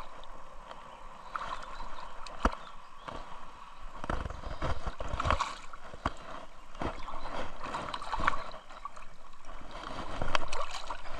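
Creek water running steadily, with scattered sharp clicks and knocks over it.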